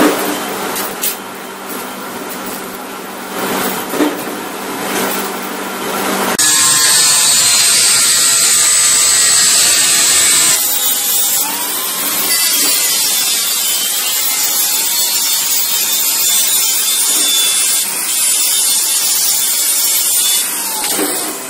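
Stick (arc) welding on a sheet-steel cone: a steady crackling hiss with a few sharp pops for about the first six seconds. Then an angle grinder runs, cutting and grinding the steel, its motor pitch dipping and recovering as the disc bites.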